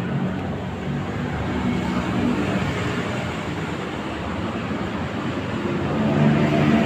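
Steady traffic noise: the rumble of vehicles passing on a city street.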